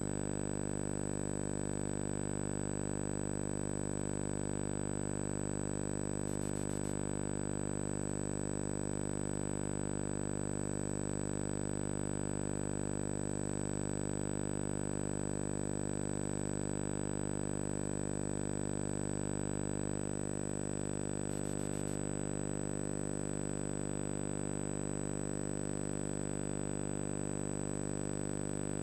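Steady electrical hum and buzz with a thin, high-pitched whine above it, unchanging throughout: the background noise of a VHS tape transfer during a stretch with no programme sound.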